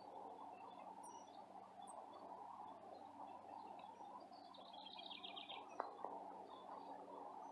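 Faint birdsong over steady background noise: a few scattered high chirps, and a short trill of quick notes falling in pitch about five seconds in. A single sharp click sounds just after the trill.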